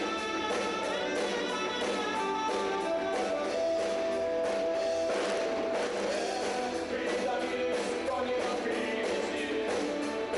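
Rock music played by a band with guitar, with long held notes and a steady beat-free level.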